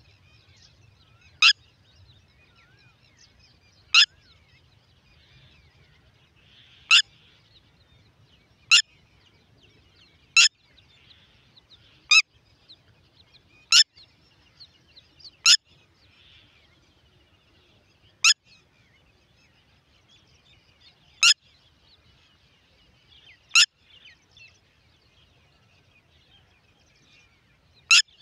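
Red-wattled lapwing giving short, sharp single call notes, about a dozen of them at irregular gaps of one and a half to three seconds. Faint twittering of small birds runs beneath.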